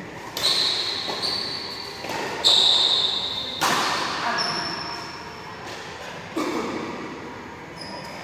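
Badminton rally: a shuttlecock is struck back and forth by rackets, giving about six sharp hits a second or so apart, several with a brief high ring, each echoing through the hall.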